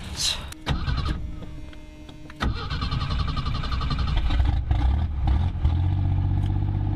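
1983 AMC Eagle SX/4's engine starting suddenly about two and a half seconds in, then running on steadily at a fast idle, with no exhaust fitted. It is heard from inside the cabin.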